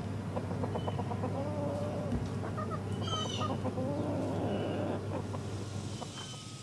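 Backyard hens clucking in their coop, with a few short high chirps, the clearest about three seconds in.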